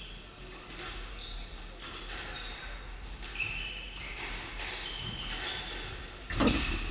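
Squash rally on a wooden-floored court: the ball cracks off rackets and walls about once a second, with shoes squeaking on the floor. Near the end comes a loud thud as a player lunges.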